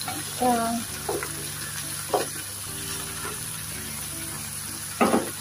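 Tofu and vegetables sizzling in a stir-fry pan on high heat, with a spatula scraping and knocking against the pan about four times.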